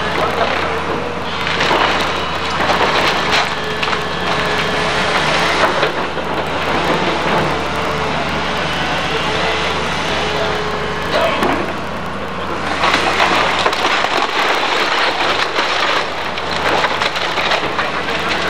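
An excavator is tearing apart a wood-frame house. Timber splinters and cracks in two spells, one in the first third and one starting about two-thirds of the way through, over the machine's diesel engine running steadily.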